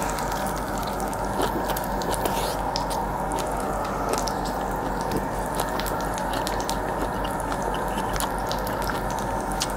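Slices of beef sizzling on a tabletop grill plate: a steady hiss with scattered small crackling pops of spitting fat.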